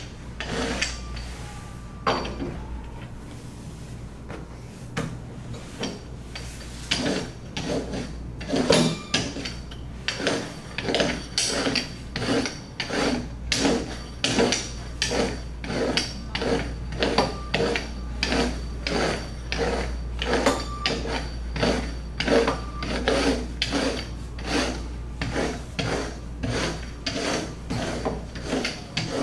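Rolling pin being pushed back and forth over a sheet of bread dough on a wooden table, a rhythmic rubbing at about two strokes a second that settles in after the first few seconds.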